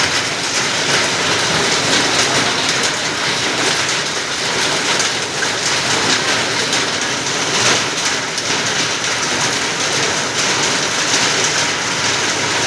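Steady rainfall, a dense even hiss with no let-up.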